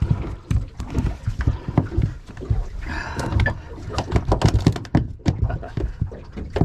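Irregular knocks, taps and clatter as a freshly caught mackerel is handled and unhooked in a small fishing boat.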